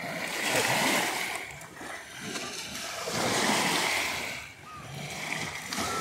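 Small waves washing up on the sandy shore of Lake Ontario: two surges of rushing water over sand, about three seconds apart, each swelling and then fading.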